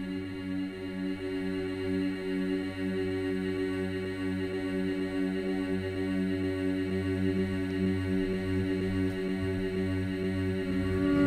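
Meditative background music: a steady drone of held, chant-like tones. A deeper tone comes in at the start, and the drone swells near the end.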